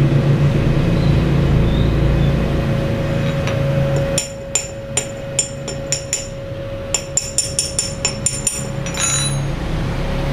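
Chipping hammer knocking slag off a fresh stick weld on a small steel sprocket: a quick run of sharp metallic taps that ring, starting about four seconds in and stopping near the end, over a steady low hum.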